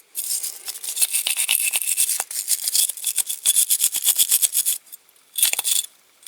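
Small wire brush scrubbing leftover paint off a diecast metal model car body in rapid back-and-forth strokes. It stops about five seconds in, then comes back for one short burst near the end.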